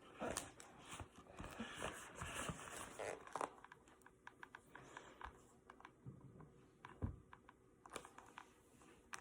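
Faint rustling and scattered light clicks from a paper picture book being handled.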